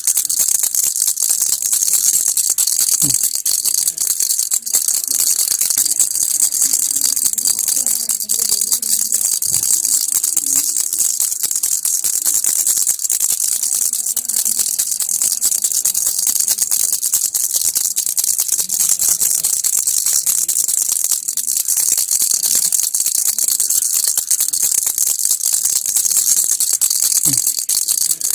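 Baby rattle shaken continuously, a fast, unbroken rattle of loose beads with a bright, hissy sound.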